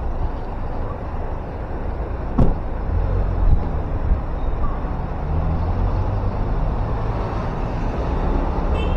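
City street traffic: a steady low rumble of car engines and tyres passing on the road, with one short sharp knock about two and a half seconds in.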